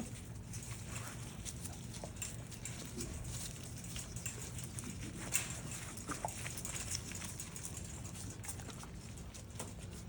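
4½-week-old Labrador puppies moving about, their paws and claws pattering and clicking irregularly, with an occasional faint short squeak.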